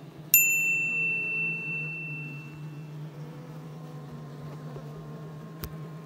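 A single bright bell-like ding about a third of a second in, ringing out and fading over about two seconds, with a sharp click near the end: a subscribe-button sound effect. Under it runs the steady low hum of an Asian honeybee colony.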